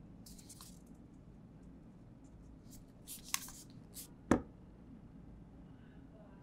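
Hands handling unboxing items: light rustling, then a few quick clicks and taps with one sharp click a little after four seconds in.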